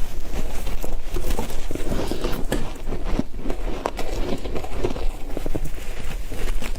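Ice being chewed: a dense, irregular run of sharp crunches and crackles.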